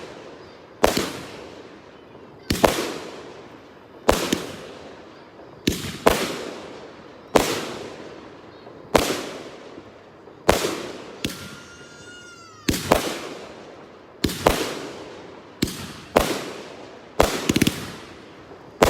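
Red Apple Solaris fireworks cake firing a long string of loud aerial breaks, one about every second and a half, each booming and echoing away. Near the middle one shot carries a falling whistle.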